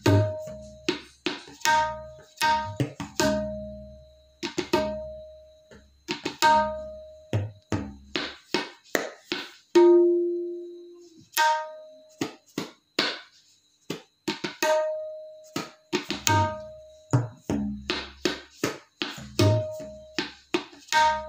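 Tabla (dayan and bayan) playing a slow theka: sharp ringing strokes on the small right-hand drum alternating with deep, resonant bass strokes on the metal left-hand drum, with one long ringing stroke about ten seconds in.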